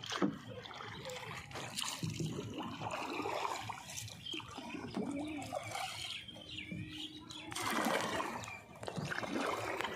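Water sloshing and splashing as a wooden paddle strokes a small boat through shallow floodwater, with a louder surge of churning splashes about eight seconds in.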